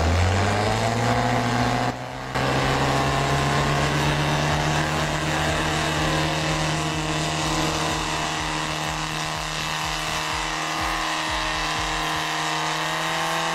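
A 4x4 SUV's engine revving up over the first couple of seconds, then held at high, steady revs.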